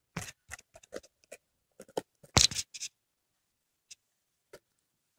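Small metal clicks and knocks as the clutch master cylinder pushrod clevis is fitted onto the clutch pedal arm, quickly one after another over the first three seconds, with one louder knock about two and a half seconds in, then two faint ticks.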